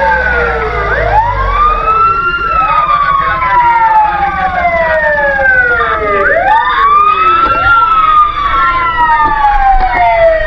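At least two fire-truck sirens wailing out of step, each rising quickly in pitch and then falling slowly over about five seconds, over a steady low rumble.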